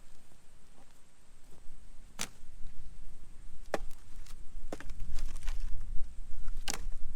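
Wood campfire burning with a low rumble, and about five sharp, irregular cracks and pops of wood.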